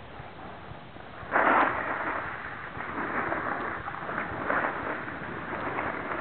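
Edges scraping and hissing over packed snow as riders slide down a groomed slope. The sound comes in suddenly about a second in and then goes on in uneven surges as they turn.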